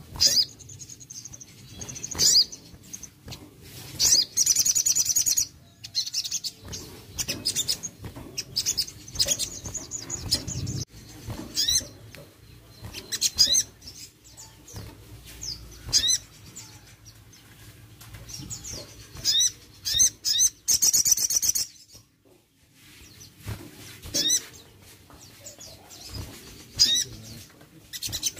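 Sogon songbird singing: sharp, high chirps and quick falling notes, broken by several bursts of fast, buzzy trilling. Wings flutter against the cage now and then.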